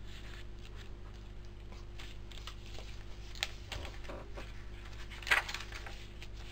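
Paper pages of a handmade journal being handled and turned: soft rustles and light clicks, with one louder rustle about five seconds in.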